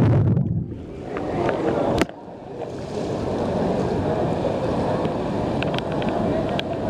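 Steady rush of wind and sea noise. A louder low rumble fades out in the first second, a single sharp click comes about two seconds in, and light ticks and crackles sit over the rush near the end.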